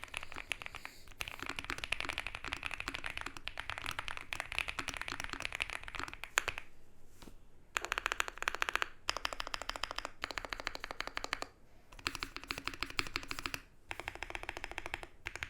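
Fast typing on a custom TKL keyboard with a polycarbonate plate and GMK keycaps. The keys are Purple Panda tactile switches from about a second in, after a last moment of MX Browns. The typing comes in runs of dense keystrokes with short pauses between them.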